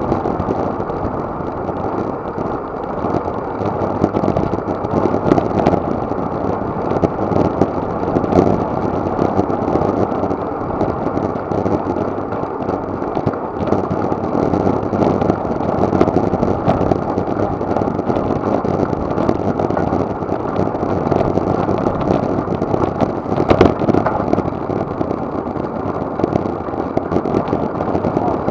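Steady rush of wind and road noise on an action camera's microphone while riding a road bike at speed: a muffled, unpitched roar that swells slightly now and then.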